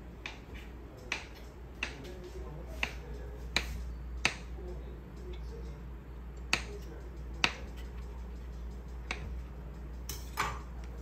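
Kitchen knife knocking on a stone countertop as it cuts through soft dough: about ten sharp clicks at an uneven pace, over a low steady hum.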